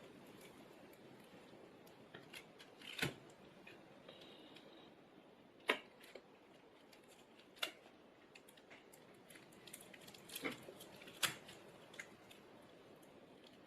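Scattered sharp small clicks and taps, about half a dozen spread out, from tools and small parts being handled on a smartphone during reassembly.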